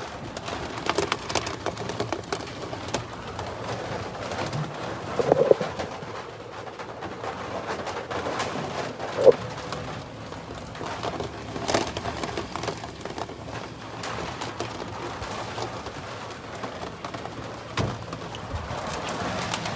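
Storm wind buffeting an RV fifth wheel: a steady rush of wind with scattered rattles and knocks from the trailer, and two brief hollow hoot-like tones, about five and nine seconds in.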